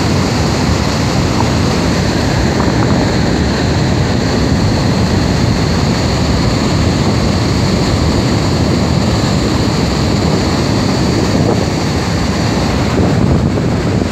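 Niagara Falls: the steady, loud rush of a huge mass of falling water, a deep, even noise with no tone in it.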